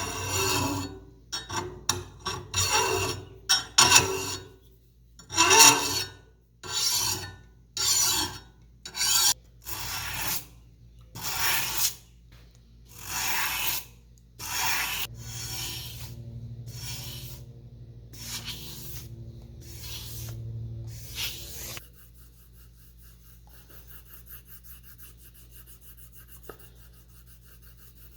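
Repeated hand scraping strokes of a file or abrasive working the steel of an old draw knife being restored, roughly one stroke a second. The strokes stop about three-quarters of the way through, leaving a faint steady hum.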